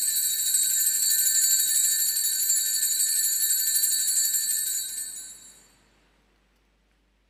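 Altar bells ringing: a cluster of small bells shaken continuously in a rapid, high metallic jangle that fades out about five and a half seconds in. The ringing marks the elevation of the consecrated chalice.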